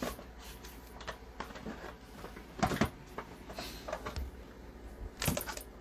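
Light handling noises: scattered soft clicks and short rustles, several of them spread unevenly over a few seconds, over a faint steady hum.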